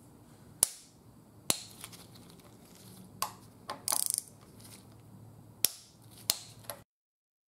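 Ratchet-head torque wrench on the bolts of an engine's high-pressure fuel pump, metal on metal. There are four sharp loud clicks and a quick run of ratcheting clicks about four seconds in. The sound cuts off suddenly near the end.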